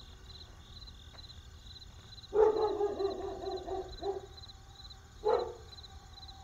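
Night ambience of insects chirping: a steady, high chirp pulsing about three times a second. Over it, an animal cries out, a drawn-out call starting a little over two seconds in, then two short ones.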